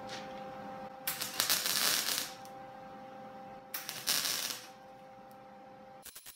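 Lincoln wire-feed welder running flux-core wire: two short bursts of crackling, spitting arc as skip welds are laid on a steel patch panel, over a steady hum. The sputter and spit are typical of flux-core wire. A quick run of clicks starts near the end.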